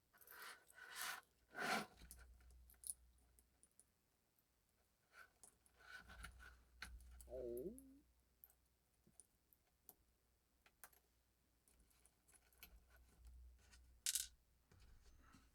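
Faint scattered clicks and taps of small metal watch parts and tools being handled while a watch clasp is taken apart, with one sharper click near the end.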